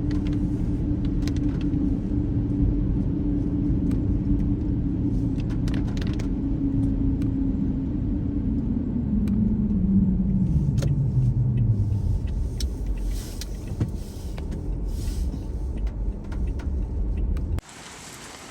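A car driving, with a steady low engine and road drone. About halfway through the drone drops in pitch as the car slows, leaving a lower rumble, and it cuts off abruptly near the end.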